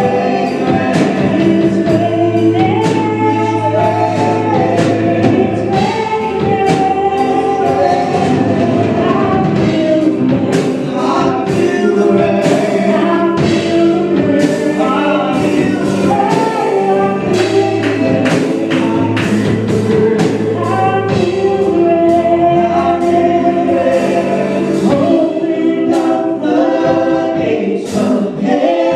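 Gospel praise team singing together with live band accompaniment: a choir of voices over steady bass and drums.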